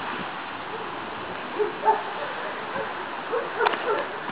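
Dog barking in short bursts, a couple about two seconds in and a quicker run of barks near the end: guard barking during protection work.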